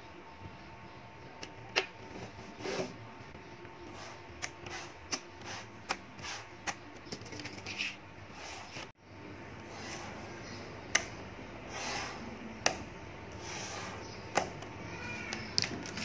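Small magnetic balls clicking and snapping together as they are pressed into rows and slid across a tabletop: irregular sharp clicks over a faint steady hiss.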